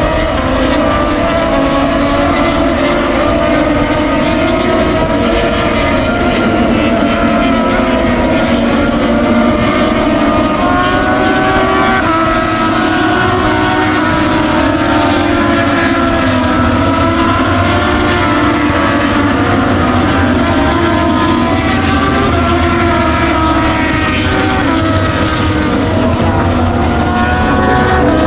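Several motorcycle engines running together, their pitches wavering and gliding up and down as the revs change.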